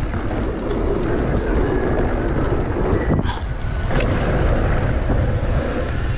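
Wind rushing over the camera microphone and a 2020 Specialized Stumpjumper Evo mountain bike's tyres rolling fast over dirt and wooden ramp boards, with sharp clatters about three and four seconds in.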